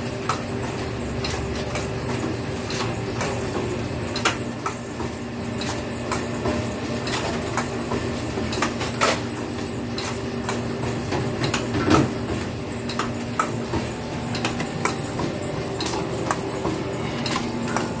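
Semi-automatic cone ice cream crimping machine running with a steady motor hum, with scattered clicks and knocks as it works and one louder knock about twelve seconds in.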